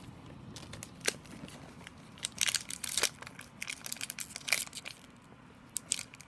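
Foil wrapper of an Upper Deck hockey card pack crinkling in the hands as it is torn open, in short irregular crackles.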